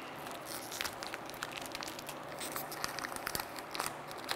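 Light handling noise: scattered small clicks and crinkling as a braided steel hose and its fittings are handled.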